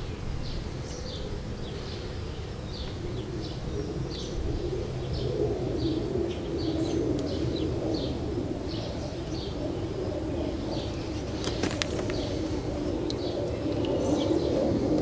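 Birds chirping outdoors, short high chirps repeating about twice a second over a lower steady wavering sound, with a few sharp clicks about eleven seconds in.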